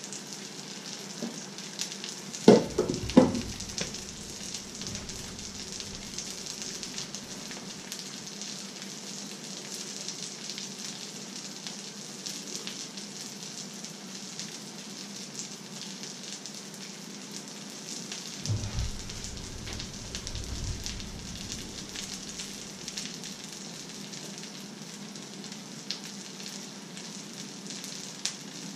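Egg and breaded fish fingers frying in a pan, a steady sizzle. Two sharp knocks come about two and a half seconds in, and a duller thump about two thirds of the way through.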